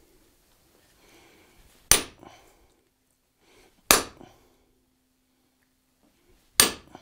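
Three hammer blows on an eyeball punch set on hot sheet iron lying on an anvil, each a sharp metallic strike with a brief ring, about two seconds apart.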